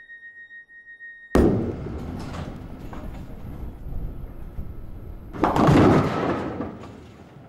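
A steady high tone cuts off at a revolver shot about a second in: a sudden loud bang that rumbles on for several seconds. A second loud swell comes about two-thirds of the way through, then fades away.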